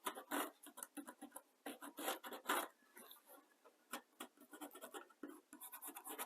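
Pencil scratching and rubbing over masking tape laid on a car body panel, tracing the panel's edges and bends for a template. Irregular scratchy strokes with a couple of short pauses.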